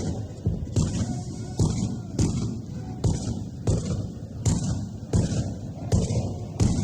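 Battle ambience of musket and rifle fire: sharp shots go off every second or less over a continuous low rumble of more distant gunfire.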